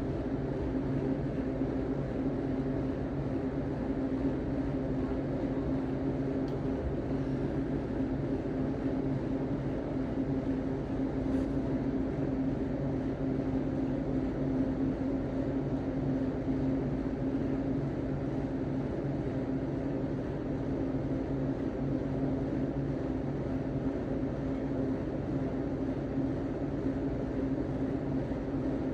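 Steady low mechanical hum, unbroken, with no burps or farts standing out.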